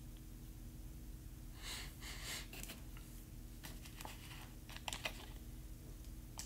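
Soft rustling about two seconds in, then a handful of small sharp clicks around four to five seconds in, over a steady low hum.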